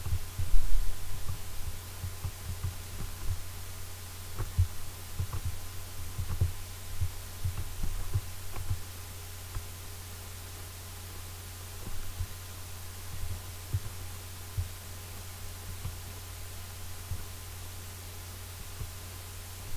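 A steady low hum with irregular low thumps scattered through it, the strongest about a second in.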